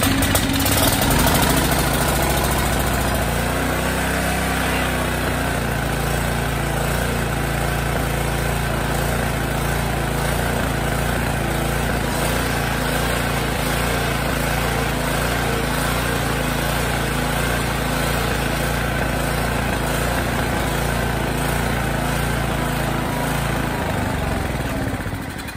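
Tecumseh OHV 5 hp single-cylinder engine on a tiller catching and running steadily. It is running again after its carburetor was rebuilt. About a second before the end it is shut off and winds down.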